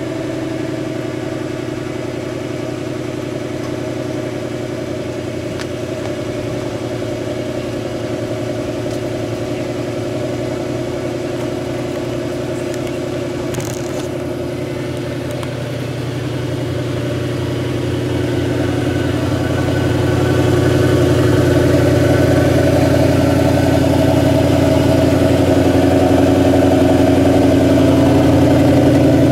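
Jaguar S-Type's 4.2-litre V8 idling steadily through its twin exhausts just after a cold start, running on a fuel blend with 22% E85. The sound grows louder about eighteen to twenty seconds in and is then heard close at the tailpipe.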